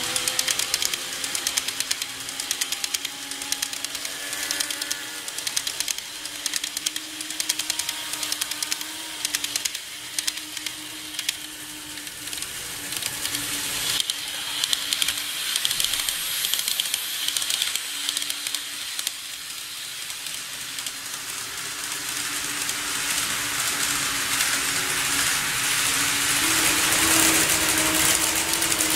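N-gauge model train running on track: fine rapid clatter of wheels over the rail joints with a steady motor hum as a KATO E233-3000 set passes and draws away, then another train's running noise grows louder toward the end.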